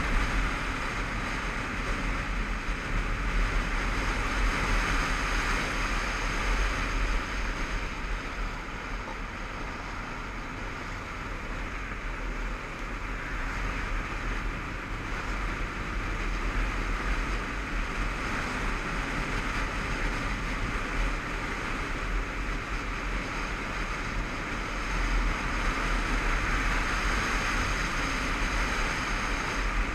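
Steady wind rush over a helmet-mounted camera while riding a motorcycle, with the bike's engine running underneath. The rush eases a little about ten seconds in and builds again a few seconds later.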